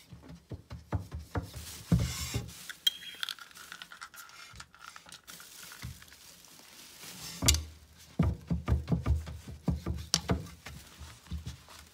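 Irregular knocks, taps and rubbing against a wooden, glass-fronted enclosure, with glassy clinks. The loudest knock comes about seven and a half seconds in, followed by a quick run of knocks.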